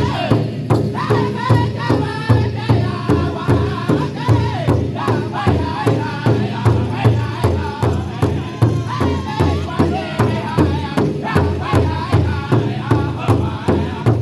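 Powwow drum group singing a high-pitched chant together while striking one large shared hide drum in unison, a steady beat a little over two strokes a second.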